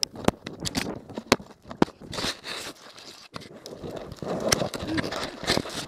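Close crunching of snow and rubbing of jacket fabric against an action camera, with irregular sharp knocks and scrapes.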